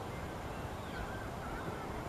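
Geese giving a few short, faint calls in the second half, over a steady low rumble.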